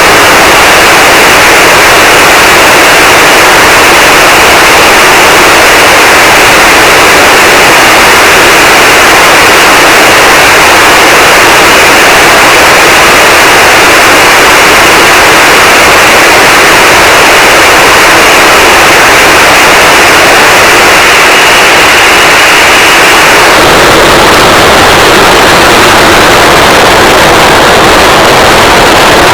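Extremely loud, distorted static noise at full volume, an 'earrape' sound effect. About 23 seconds in, its tone shifts lower and fuller.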